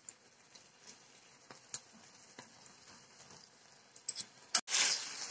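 Faint scattered clicks of a utensil turning chicken pieces in a frying pan. About four and a half seconds in, a louder steady sizzle begins: chicken frying as its honey and balsamic sauce cooks down and caramelises.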